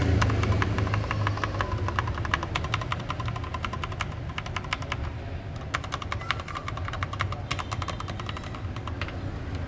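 Mechanical keyboard keys, with keycaps fitted, being pressed rapidly: a dense run of clacks, with a steady low hum underneath.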